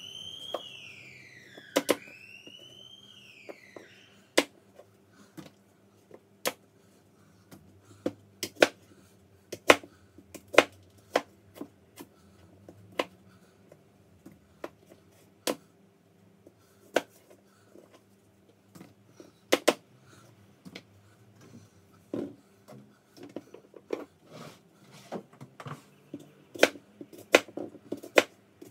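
Kitchen knife cutting apples on a cutting board: irregular sharp knocks of the blade hitting the board, coming faster near the end. In the first few seconds a whistle glides up and down twice, over a faint steady hum.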